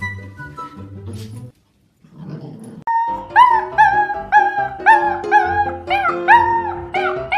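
Background music; after a short break, a husky puppy's high yips, each rising then falling in pitch, repeating about twice a second over the music.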